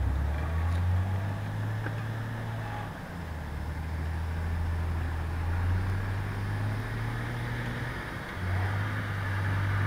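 Jeep engine running under load while towing another Jeep up a sandy bank on a strap. Its low note holds steady, drops about three seconds in, and shifts again about eight seconds in.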